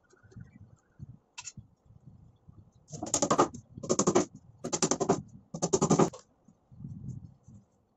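Hammer tapping nails into a plywood box top: four quick runs of rapid taps about a second apart, around the middle, with a few lighter knocks before and after.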